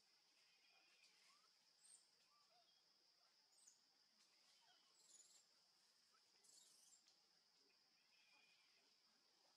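Faint forest ambience: a steady high insect drone with scattered short, high chirps.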